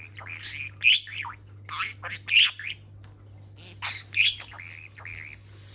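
Budgerigar chattering: a quick, unbroken run of short warbled chirps and squawks, with louder sharp notes about one, two and a half, and four seconds in.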